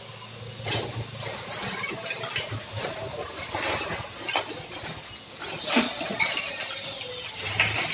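Irregular knocks and clatter of house demolition: brick and concrete being broken up and rubble falling, with a few louder strikes spread through.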